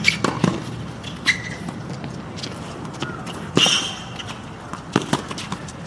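Tennis rally on a hard court: sharp pops of racquets striking the ball and the ball bouncing, spaced a second or so apart.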